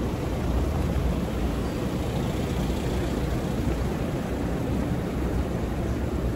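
Steady city street ambience: a continuous low rumble of traffic, even throughout with no distinct events.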